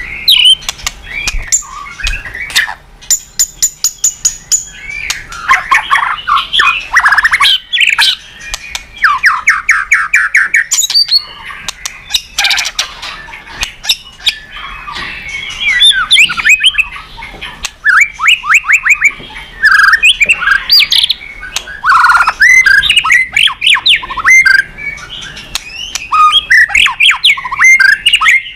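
White-rumped shama (murai batu) in full song: a loud, varied run of phrases made of fast trills, sweeping whistled notes and sharp clicking notes, one after another with only short breaks.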